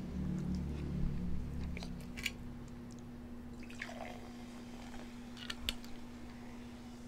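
A person eating close to the microphone: soft wet chewing with scattered mouth clicks and smacks, over a steady faint hum.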